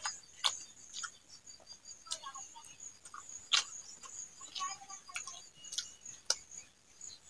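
Eating by hand: fingers mixing sticky rice and greens on a plate and mouth sounds make scattered short wet clicks and smacks, the loudest about three and a half seconds in. A faint steady high pulsing tone runs underneath.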